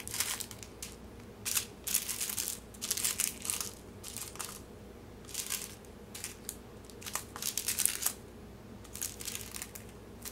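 Small plastic bags of round diamond-painting drills crinkling as they are picked up and shuffled by hand, in short irregular bursts with quiet gaps between.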